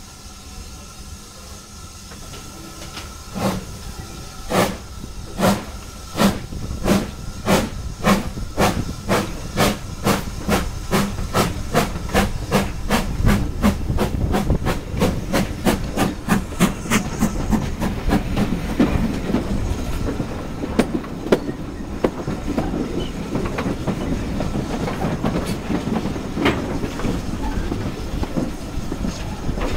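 Steam train pulling away, heard from a carriage window. The locomotive's exhaust chuffs begin about three seconds in, slow at first and quickening to a few a second, then fade under the steady rumble and clatter of the carriage wheels on the rails as the train gathers speed.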